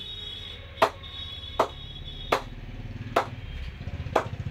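A leather cricket ball bounced on the face of a BAS cricket bat: five sharp knocks a little under a second apart, the usual shop test of how well the bat's blade rebounds. A low mechanical drone runs underneath and grows louder near the end.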